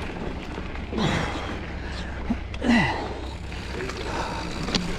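A mountain biker breathing hard, with two loud voiced exhales that fall in pitch, one about a second in and one near the three-second mark, over a steady low rumble from the ride.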